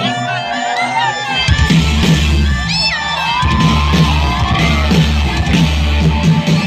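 Live band music through a large concert PA, with a crowd cheering, shouting and whooping. A heavy bass beat comes in about a second and a half in.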